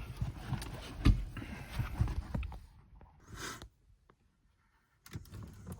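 Plastic knocks and scrapes as the Audi A1's MMI screen unit is pushed out of its dashboard clips, with a sharp knock about a second in. A brief rustle follows, then a short quiet spell and a few light clicks near the end.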